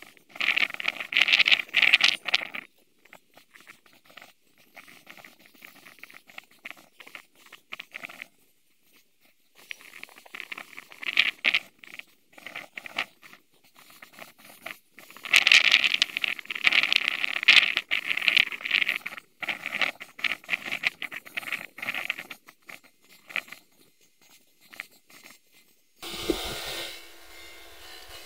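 Irregular bursts of rustling and crackling, a few seconds each with quieter gaps between them. Near the end it changes to a steady hiss with a low hum.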